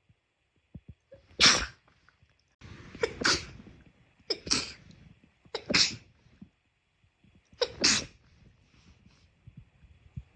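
Five sharp sneezes in a row, one every one to two seconds, the first the loudest.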